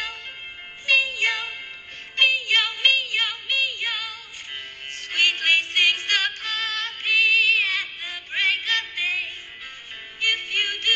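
A children's song sung in Korean by a high voice over light instrumental backing, its held notes wavering in pitch.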